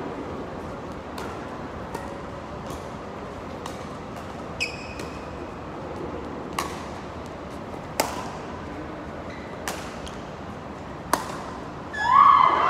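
A badminton rally: sharp racket-on-shuttlecock hits, about one every one to two seconds, each with a short ring in a reverberant hall, and a brief shoe squeak on the court floor. Near the end a loud cry rises in pitch.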